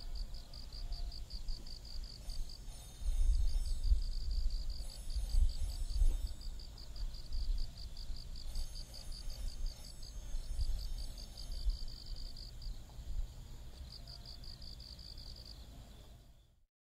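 Insects chirping in a rapid, steady pulsing rhythm, with a low rumble underneath that swells from about three seconds in. The sound cuts off just before the end.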